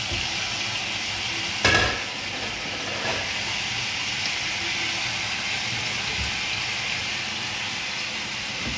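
Frying pan of sauce and butter sizzling steadily on the hob while flour is added. There is one sharp clink about two seconds in, and a fainter knock about a second later.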